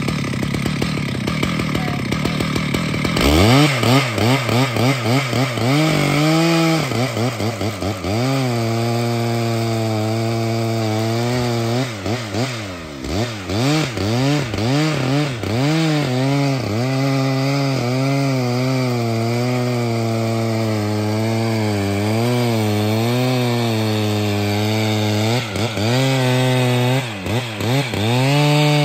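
A Stihl MS 881 two-stroke chainsaw cutting into the base of a tree trunk. Its engine comes up loud about three seconds in, and its pitch sags and recovers again and again as the chain loads up in the wood.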